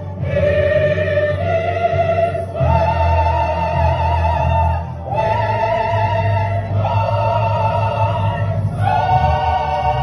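Choir singing a hymn in slow, sustained chords, each held for a couple of seconds, with short breaks between phrases.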